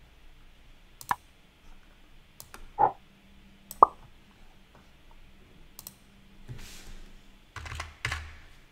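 Several separate sharp clicks of a computer mouse as it is worked on a desk, the loudest about four seconds in.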